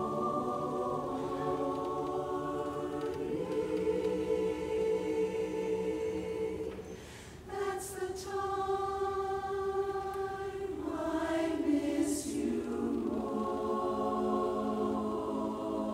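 Women's a cappella barbershop chorus singing held chords in close harmony, with a brief breath break about seven seconds in and crisp 's' sounds sung together.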